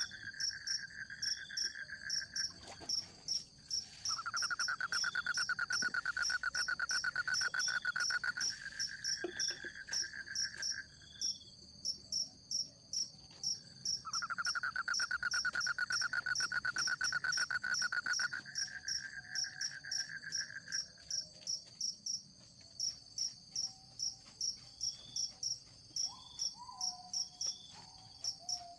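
Forest insects calling: a steady, fast-pulsing high cricket-like chirring throughout, with a lower buzzing trill that runs in stretches of several seconds and stops between them.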